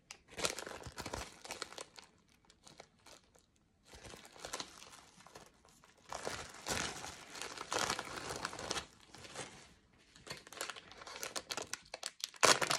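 Thin plastic packaging crinkling and rustling in uneven bursts as bags are handled and a small pouch is opened. The bursts pause for a couple of seconds about two seconds in, and the loudest comes near the end.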